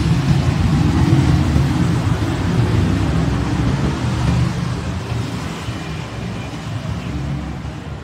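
A low engine rumble from a motor vehicle running, strongest at first and growing fainter over the second half.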